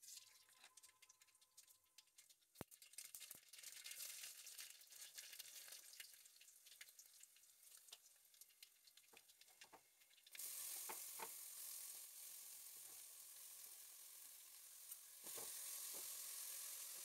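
Mustard seeds, garlic, red chillies and curry leaves frying in coconut oil in an aluminium pan: a sizzle with many small crackles and pops. It gets louder about ten seconds in and again near the end, with chopped banana flower frying in the pan by then.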